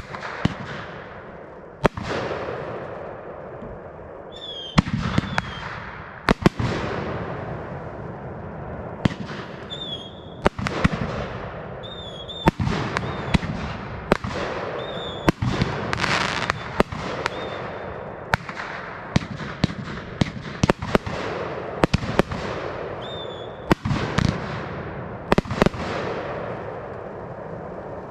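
Fireworks display: aerial shells bursting in quick succession, a sharp bang every second or two, each trailing off in crackle and fizz, with a few short high whistles among them.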